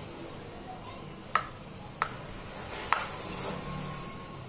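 Three sharp, crisp crunches of a slate cube being bitten, roughly a second apart.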